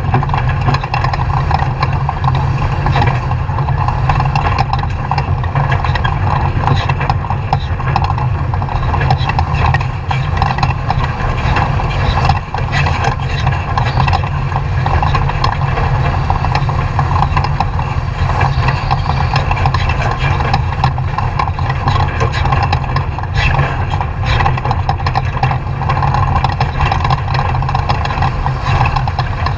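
Off-road race truck engine running steadily and loudly, with a constant rush of noise and many short knocks and rattles throughout.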